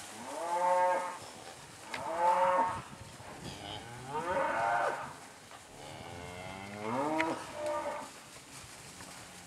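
Cattle mooing: four separate moos, each about a second long, rising and then falling in pitch.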